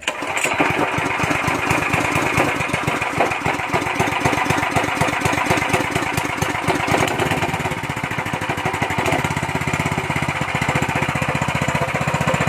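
Fuji Star 196cc single-cylinder, air-cooled four-stroke engine running steadily, with a rapid, even firing beat.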